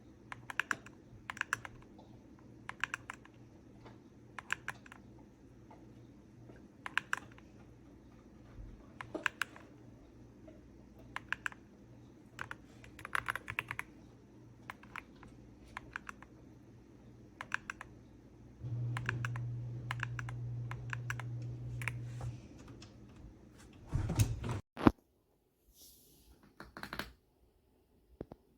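Typing on a YUNZII X71 mechanical keyboard with Crystal Ice linear switches: short bursts of keystrokes every second or two. A low steady hum comes in for a few seconds past the middle, and a few louder knocks follow near the end.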